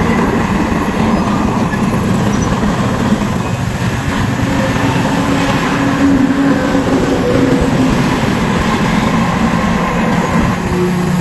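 Heavy dump truck's diesel engine running steadily with a continuous rumble, its pitch drifting slightly up and down.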